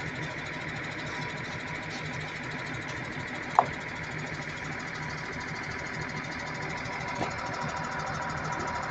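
Wheel loader's diesel engine idling steadily, with a single sharp clank a little over three and a half seconds in.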